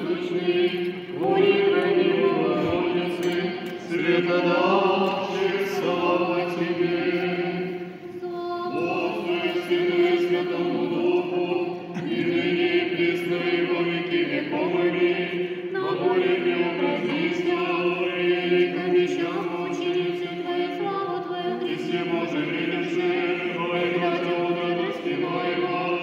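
Several voices singing an Orthodox liturgical chant together in church, phrase after phrase around one steady reciting note, with brief breaks between phrases.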